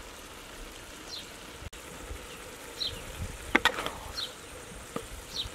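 A bird calling repeatedly in short, high, falling chirps about every second or so. A brief metal clatter comes about three and a half seconds in.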